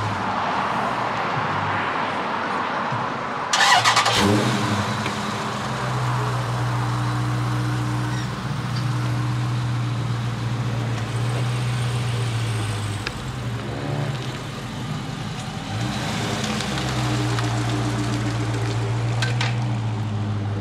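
Dodge Charger Scat Pack's 392 (6.4-litre) HEMI V8 flares up loudly about three and a half seconds in, then runs steadily. Its pitch dips and rises again about two-thirds of the way through.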